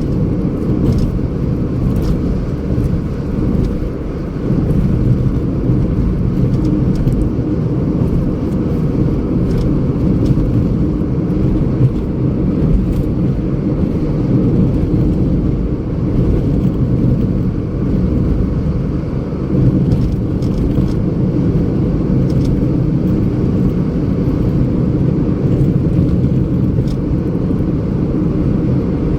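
Steady low rumble of a car driving, with a few faint ticks scattered through it.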